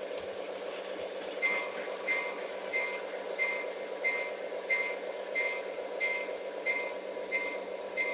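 Electronic reversing-alarm beeping from an O gauge Lionel model's sound system, evenly repeated about one and a half times a second and starting about a second and a half in, over the steady hum of the model running on the track.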